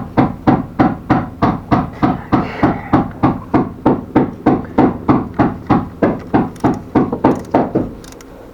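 Rapid, even hammer blows on metal, nearly four a second, each with a short metallic ring, stopping about eight seconds in.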